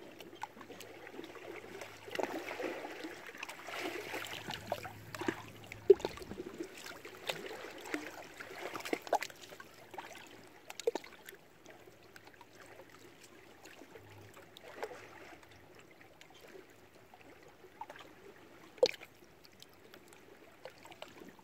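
Small lake waves lapping and splashing against shoreline rocks in irregular slaps. The slaps come busier in the first half, with a sharp louder splash about six seconds in and another near the end.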